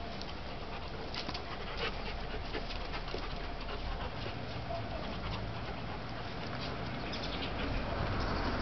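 Two dogs play-fighting, with dog noises and scuffling over a steady background hiss.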